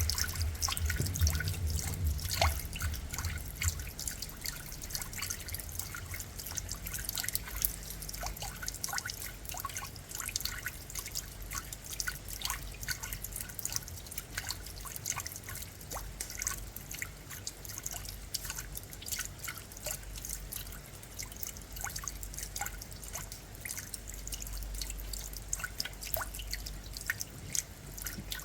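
Rain falling, heard as many separate drops dripping and splashing irregularly over a steady patter. A low rumble runs under the first few seconds.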